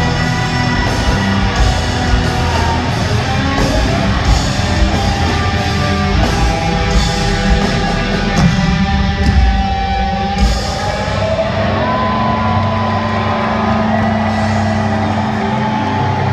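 Live alternative metal band heard from within the crowd: drums and distorted guitars play until about ten seconds in. Then the drums stop and the guitars ring out in sustained chords as the song ends.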